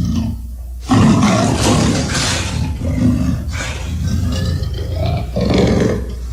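Monster roar sound effect: a long, rough roar that starts suddenly about a second in, followed by a shorter second roar near the end, over a steady low rumble.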